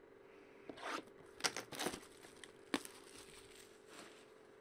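Crinkling and tearing of plastic shrink-wrap and rustling of cardboard and paper as a sealed box of hockey cards is opened, a run of crackly rustles in the first two seconds, then a single sharp click.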